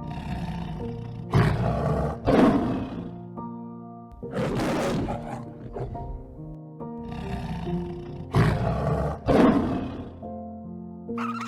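A large animal roaring five times, in two pairs with a single roar between them, over background music.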